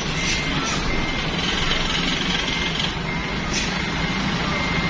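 Bus engine running with a reversing beeper sounding regular short beeps, a little more often than once a second, and a few brief hisses.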